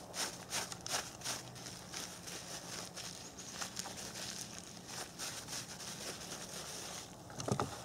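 Plastic zip-top bag crinkling in irregular bursts as the powder mixture inside is shaken and kneaded by hand.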